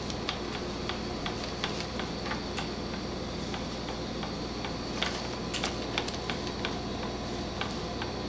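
Light, irregular clicks and ticks from a baby's doorway jumper seat and its plastic toy tray as the baby moves in it, a few a second with a brief cluster about five to six seconds in, over a steady background noise.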